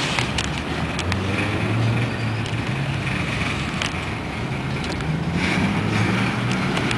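Freight train of steel-loaded flatcars rolling past close by: a steady rumble of wheels on rail, with a sharp click every second or so as wheels cross rail joints.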